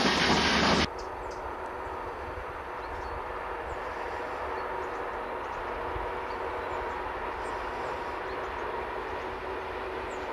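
Loud running noise of a passing freight train's wagons, cut off abruptly under a second in. Then a steady, much quieter rumble with a few faint steady tones: a distant freight train approaching on an electrified line, with a few faint high chirps.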